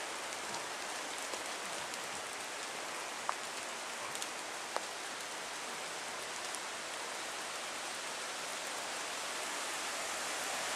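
Steady hiss of falling water, with a few sharp ticks between about three and five seconds in.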